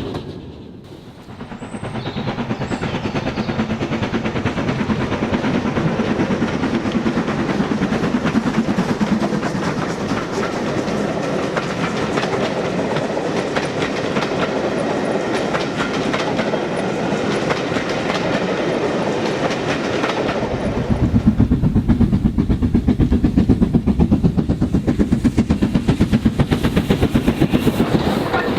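OO gauge model train running on the layout track, its wheels clicking rapidly over the rail joints along with the whirr of the locomotive's motor. About twenty seconds in the sound turns lower and louder.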